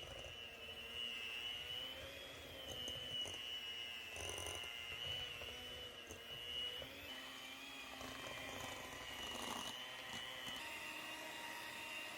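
Electric mixer motor running steadily with a high whine that wavers slightly in pitch as it works through a thick batter.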